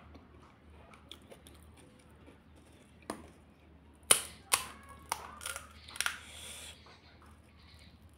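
Crisp puri shells cracking as fingers break holes in their tops: a run of sharp, dry crackles from about three to six seconds in, the loudest about four seconds in, then a short crumbly rustle.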